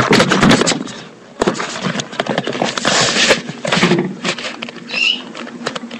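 Handling noise from a camera held right against the microphone: rubbing, scraping and irregular clicks and knocks, with a brief high squeak about five seconds in.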